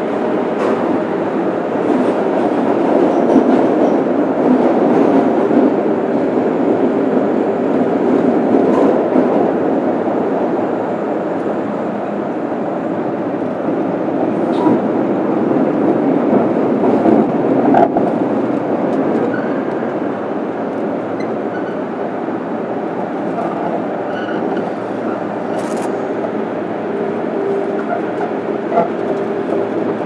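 JR Kyushu 103 series 1500-subseries electric train heard from inside its motor car (MoHa 103-1503) running through a subway tunnel: a steady noise of wheels and motors, a little louder in the first half, with a few faint clicks.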